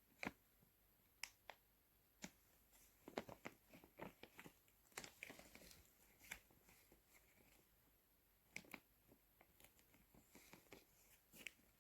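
Faint, scattered clicks and crinkles of a plastic hanging dehumidifier bag being handled, busiest in the middle, with a few sharper ticks.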